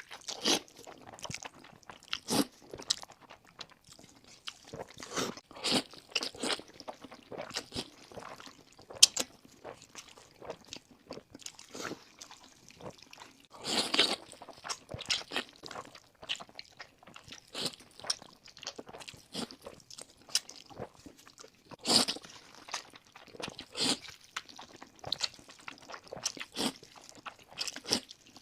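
Close-miked eating: a person biting and chewing crunchy battered sweet and sour chicken, in irregular crisp crunches. There are louder clusters of crunching about halfway through and again later.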